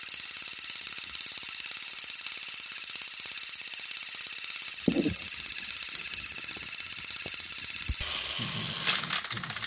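Two battery-powered Trackmaster toy train engines shoving against each other, their electric motors and plastic gearboxes running with a fast, steady rattling whir while they stall nose to nose, and a thump about five seconds in. Near the end the sound cuts to another pair of toy engines' motors, with a few knocks.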